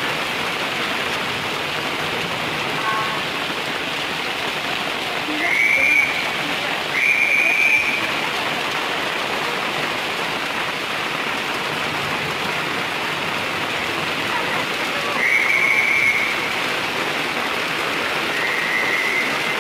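Heavy rain pouring steadily onto a city street. Over it come four short, high whistle blasts: two about six to eight seconds in and two more near the end.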